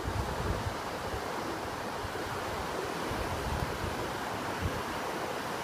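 Ocean surf washing steadily onto a beach, with wind buffeting the microphone in low, uneven rumbles.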